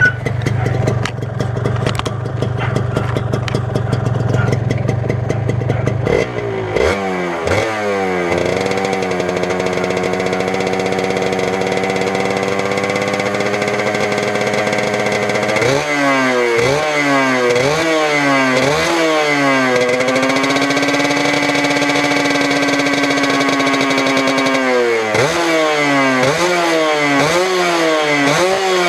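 Kawasaki Victor S 150 Super Kips motorcycle engine running low and steady for about six seconds, then revving up repeatedly, each rise in pitch ending in a sudden drop. Twice it holds a steady, higher note for several seconds between runs of quick rev rises.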